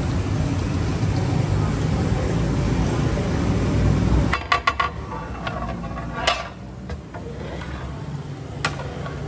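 A steady low rumble for about four seconds that cuts off suddenly, followed by a metal ladle clanking against a large steel cooking pot while stirring meat: a quick cluster of knocks, then two single knocks.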